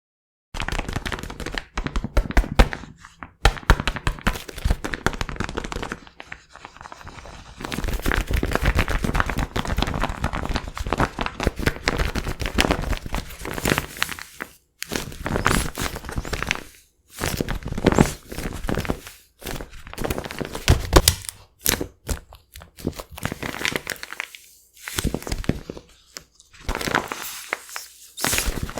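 Taped paper squishy stuffed with cotton being squeezed and released over and over, crinkling and crackling in bursts with short pauses between squeezes.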